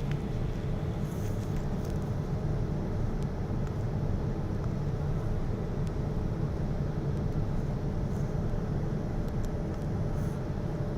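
Airliner noise: a steady low rumble with a faint constant hum above it, unchanging throughout.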